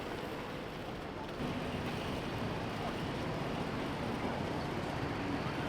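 City street ambience: a steady wash of traffic and general urban noise, stepping up a little louder about one and a half seconds in.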